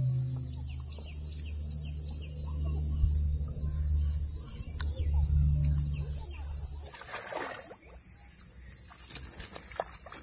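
Steady high-pitched insect chirring over a low hum. About seven seconds in, a short splash as a hooked fish is pulled up out of the river water.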